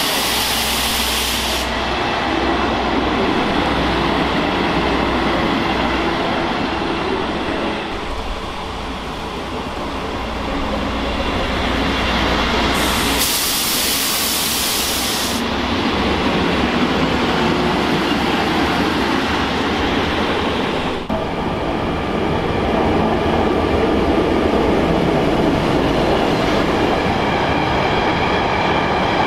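A train running at a station platform, a steady rumble of wheels and running gear. Two short bursts of hiss come through it, one ending a couple of seconds in and another about thirteen seconds in.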